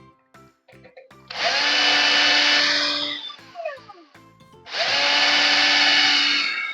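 Electric drill running in two bursts of about two seconds each, spinning up and winding down, boring holes in the case.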